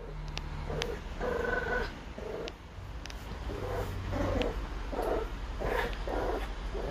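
French bulldog puppy growling and grunting in short, repeated bursts while tugging and biting a toy, with a few faint clicks.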